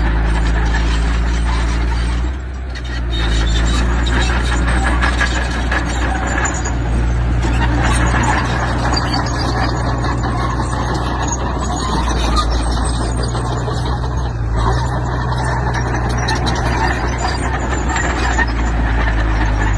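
Heavy diesel earthmoving machinery running steadily, with a dense metallic clatter over the engine, easing off briefly about two seconds in.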